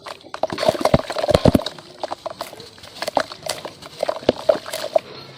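Lumps of red dirt being smashed and crumbling: a dense run of cracking and crunching in the first two seconds, then scattered cracks.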